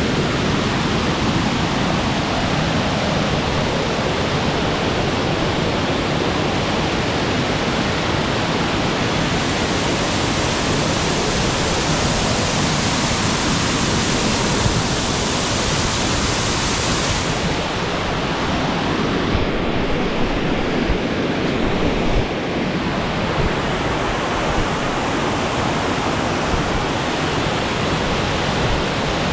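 Waterfall on the Gooseberry River, a loud steady rush of water pouring and crashing over rock. The high hiss grows brighter partway through, then drops away sharply a little past halfway.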